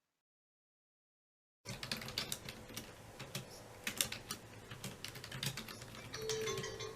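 Silence for about the first second and a half, then fast typing on a keyboard: a quick, uneven run of key clicks. A few soft musical tones come in near the end.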